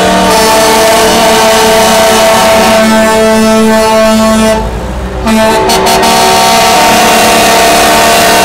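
Semi-truck air horns sounding loud and long, a steady chord of several tones at once, as the parading trucks roll by. The horns break off for a moment about halfway through, then sound again.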